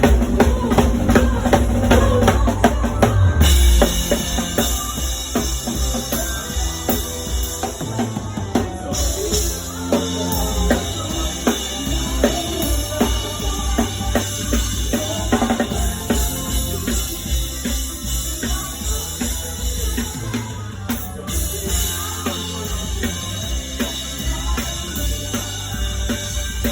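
A band playing with drum kit, bass and guitar, the drums keeping a steady beat on bass drum and snare. The music shifts about three and a half seconds in, after a slightly louder opening.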